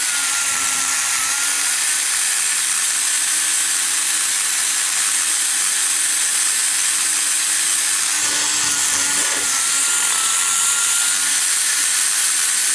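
Die grinder running with a small burr, cutting aluminum as it shapes the exhaust valve guide boss of a ProComp 190cc small-block Chevy head. It makes a steady high hiss with a thin whine that wavers a little.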